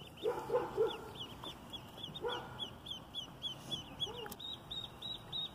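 Ducklings peeping: a steady series of short, high-pitched peeps, about three or four a second, with a few brief lower calls early on and about two seconds in.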